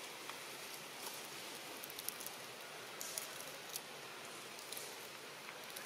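Quiet outdoor ambience: a steady faint hiss with scattered light ticks and crackles.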